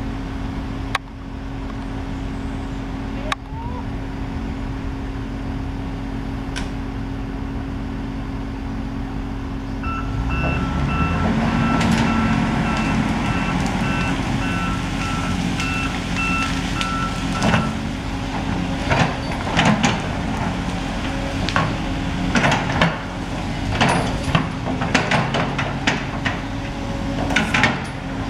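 Volvo tracked excavator's diesel engine running, working harder from about ten seconds in while its travel alarm beeps steadily for several seconds. After that come many sharp cracks and snaps as tree limbs break under the excavator's bucket.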